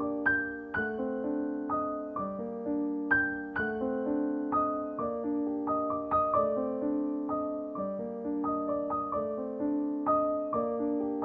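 Gentle piano music: notes and chords struck one after another at an even, unhurried pace, each one ringing and fading out.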